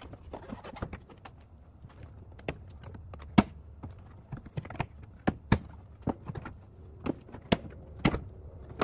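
Irregular sharp clicks and knocks of plastic trim panels and clips being handled and pried loose, about a dozen in all, spaced unevenly.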